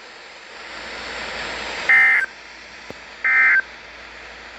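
Weather radio end-of-message signal: short bursts of screechy data tones, each about half a second long and about a second apart, over a steady radio hiss. These are the SAME digital bursts that close an emergency alert broadcast.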